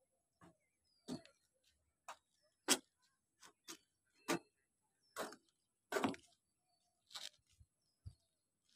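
Irregular short, sharp knocks and clicks, roughly one every half second to a second, with silence between them.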